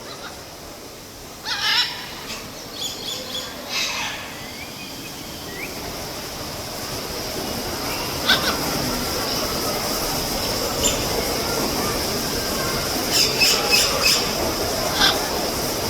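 Birds calling in short, sharp bursts: a cluster about a second and a half in, more around four seconds, single calls near the middle, and a quick run of calls near the end. Beneath them is a steady hiss that grows louder after the first few seconds.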